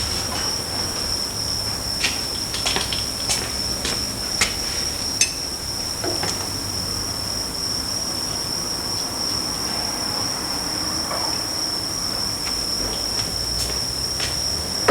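Scattered metallic clinks and knocks of hand tools and parts during a differential teardown, bunched in the first five seconds with a few fainter ones later, over a steady high-pitched whine.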